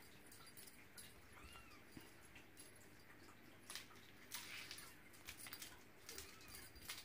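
Faint clicking, jingling and rustling of a feather wand toy's metal clip as a Ragdoll kitten bats and pounces on it across a laminate floor, growing busier about halfway through.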